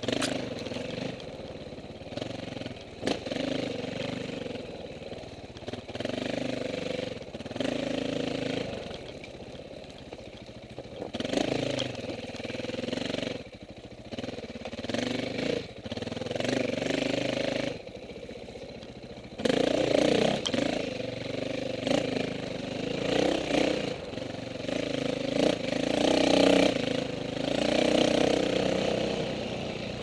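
KTM 450 four-stroke dirt bike engine being ridden off-road: it revs up in short bursts a second or two long, then drops back, about a dozen times, as the throttle is opened and closed.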